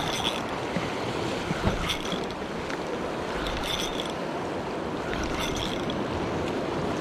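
Small sea waves washing over a rocky shoreline, with wind on the microphone. Short high-pitched ticks recur about every two seconds.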